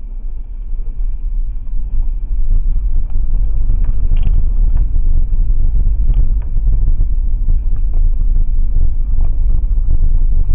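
A 2017 Toyota 4Runner rolls slowly down a gravel dirt road, off the pedals with downhill assist control switched on, picked up inside the cabin by a cheap dash cam's microphone. A deep steady rumble builds over the first couple of seconds, with scattered small clicks and knocks from the gravel and a faint steady high tone underneath.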